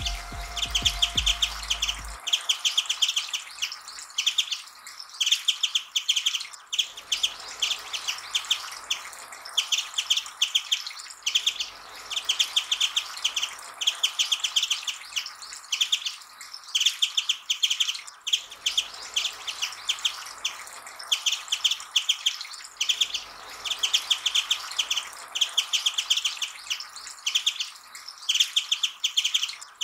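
Japanese white-eye singing: rapid, high twittering phrases about a second long, one after another with short pauses.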